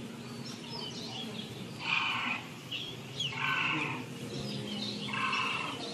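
Three bleats, each under half a second and about a second and a half apart, over faint bird chirps, played as a recorded soundscape in a museum exhibit of a pastoral grassland.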